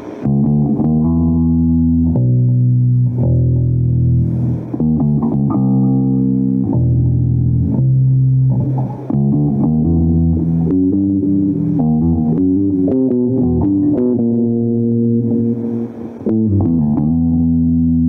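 Electric bass guitar played solo, plucking a melodic line of low notes that step up and down in pitch, some held for a second or two and others quick.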